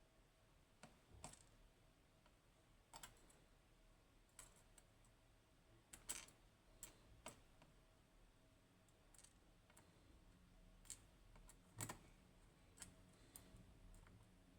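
Faint, irregular light clicks, about a dozen, of small lock parts being handled as a Goal Z Japanese pin tumbler lock is taken apart.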